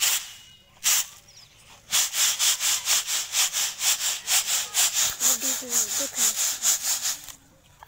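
Pearl millet grain swishing and rattling in a reed winnowing basket (chhaj) as it is winnowed clean: two single tosses, then a fast, even shaking of about five strokes a second for some five seconds.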